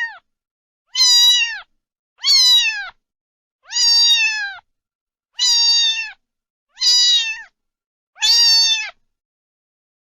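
A cat meowing over and over, six evenly spaced meows about a second and a half apart, each one dropping in pitch at the end.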